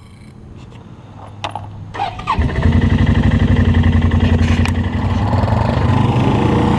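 An ATV engine starting: a couple of clicks, then about two and a half seconds in the engine catches and runs steadily with a quick, even pulse.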